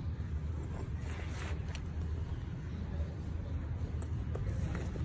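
Steady low outdoor rumble, with a few faint light clicks and rustles as knives are handled in a suede knife roll, about a second in and again near the end.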